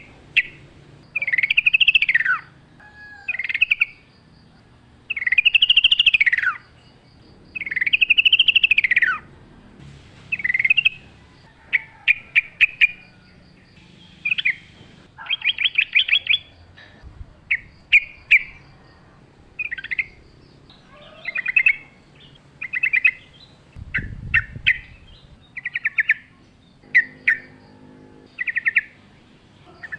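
Yellow-vented bulbul (trucukan) singing loudly. Three long arching phrases rise and fall in pitch in the first nine seconds, then comes a run of short, rapid bubbly phrases with brief gaps between them.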